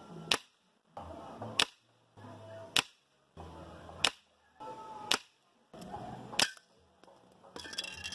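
Six air-rifle shots from a Gamo Black Bear IGT gas-piston rifle in 5.5 mm (.22), each a single sharp crack as the pellet is fired and strikes the target. The shots are cut together about a second apart, with brief dead-silent gaps between them.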